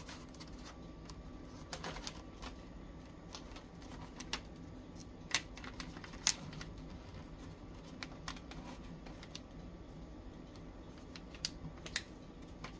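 Wrapping paper crinkling and sharp scattered clicks as it is handled and pressed into a cardboard box, over a low steady hum.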